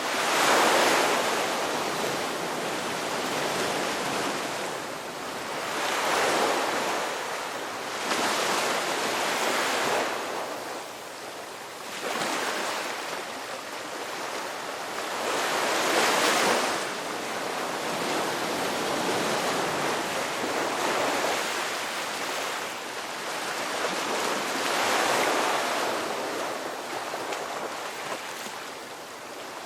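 Sea waves breaking and washing up the shore, each surge swelling into a hiss and fading again every few seconds.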